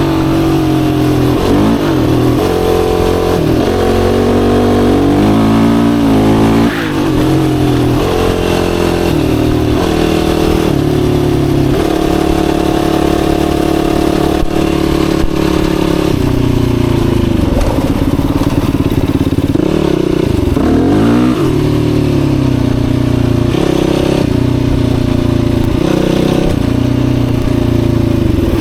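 Yamaha YFZ450R ATV's single-cylinder four-stroke engine under way, its pitch climbing and dropping in steps as the throttle is worked and gears change. Twice, in the second half, it falls away sharply and then picks back up.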